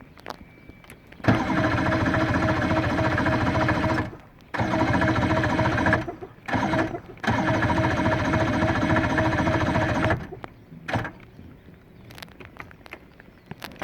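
Electric starter of a 115 hp Johnson outboard running in four bursts as the key is turned, the third one short, each a steady whir; the engine does not start.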